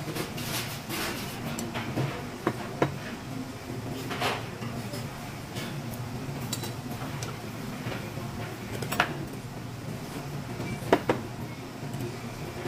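Metal chopsticks clinking against a metal pot: a few sharp clinks, the loudest about three seconds in and near the end, over a steady low hum.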